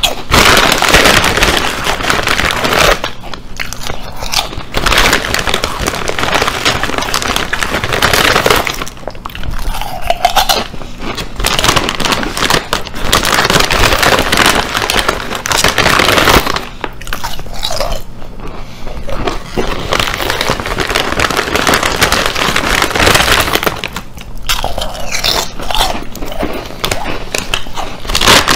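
Loud crunching and chewing of Ruffles ridged potato chips, in bouts with short pauses between mouthfuls, with the chip bag crinkling as a hand reaches into it.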